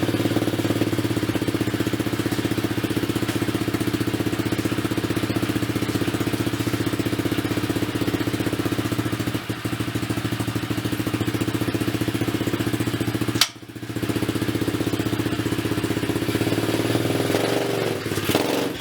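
Small pit bike engine running steadily at an even speed, now that its faulty starter has been fixed. One sharp click about two-thirds of the way through, with a brief drop in the engine sound.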